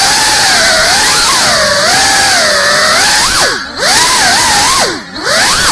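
GEPRC Cinelog35 FPV cinewhoop's brushless motors and propellers whining in flight, the pitch wavering with the throttle. From about three and a half seconds in, the throttle is chopped and punched several times: the whine swoops down and back up as the loudness drops and surges.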